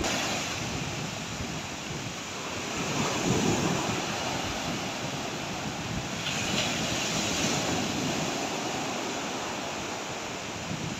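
Surf breaking and washing up a sandy beach in rough, wind-driven sea, with wind blowing across the microphone. The wash swells louder about three seconds in and again around the middle.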